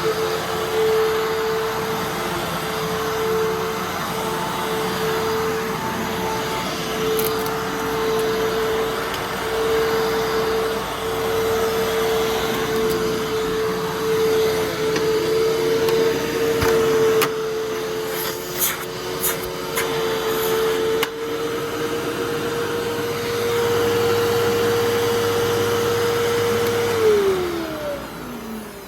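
Fantom Fury Special Edition vacuum cleaner running with a steady high whine, with a few sharp clicks in the middle. Near the end it is switched off and the freshly rebuilt motor winds down, its pitch falling; the wind-down is not perfect, the bearings greased but still a little rough.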